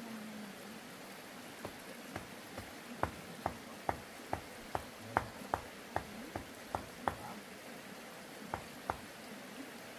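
A run of sharp knocks, about two a second, stopping about seven seconds in, then two more near the end, over a steady background hiss.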